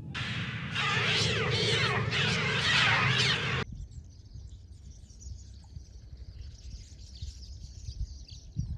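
A loud, dense mass of overlapping shrieking bird cries, many rising and falling in pitch, cutting off abruptly about three and a half seconds in. Fainter high twittering of many birds follows.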